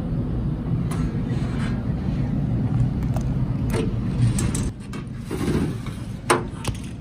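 Steady low outdoor rumble, like distant road traffic, with a few sharp clicks. It drops in level about five seconds in.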